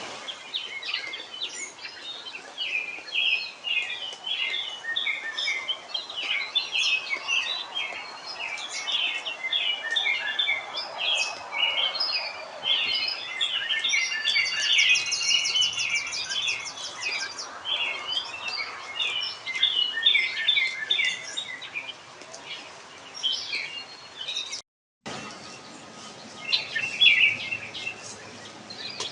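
Several songbirds singing and chirping together, with a fast high trill about halfway through. There is a brief dropout near the end.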